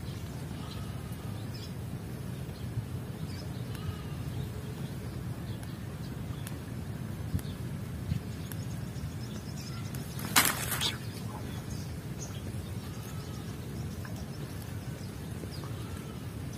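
Outdoor ambience: a steady low background rumble with faint, short bird chirps now and then. A brief crackling burst, likely the angler handling gear, comes about ten seconds in.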